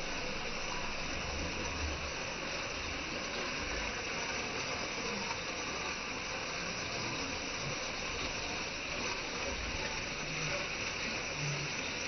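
Small waterfall cascading over rocks: a steady rush of falling and splashing water.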